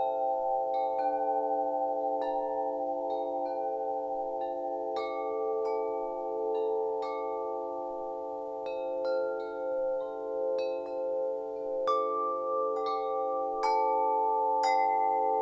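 Wind chimes ringing, struck at irregular moments about once or twice a second. Each note rings on long and overlaps the others, so the tones waver against one another.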